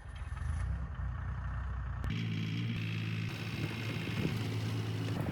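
Diesel engine of a Bobcat E35 mini excavator running steadily. About two seconds in, the sound changes abruptly to a fuller, steadier engine note with a low hum.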